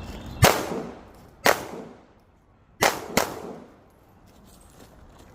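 Four pistol shots at an uneven pace: one about half a second in, another a second later, then a quick pair close together near the three-second mark, each with a short echoing tail.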